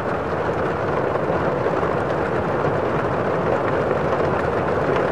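Strong cyclone wind blowing against the microphone: a loud, steady rush with no breaks.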